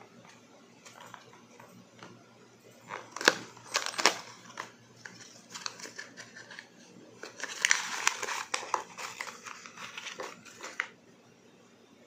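A small cardboard product box being opened by hand: scattered taps and scrapes of card, with two sharp snaps about three and four seconds in. Then a dense burst of plastic and paper crinkling for a couple of seconds, which stops near the end.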